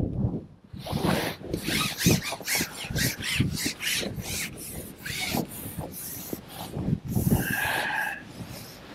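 Long carbon fishing pole being slid out by hand, rubbing and scraping in irregular rustles, with a short high squeak near the end.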